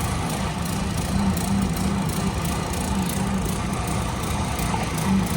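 Engine of heavy construction machinery running steadily, with a low hum that swells and fades every second or so.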